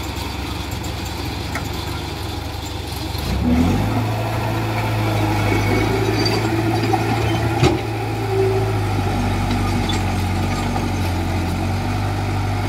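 Diesel engine of heavy earthmoving machinery running, picking up speed about three and a half seconds in and then holding steady at the higher speed. A single sharp knock sounds a little past halfway.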